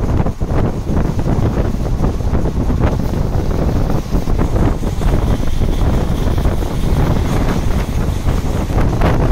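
Heavy wind buffeting the microphone, held out of a fast-moving passenger train, with the train's running rumble underneath.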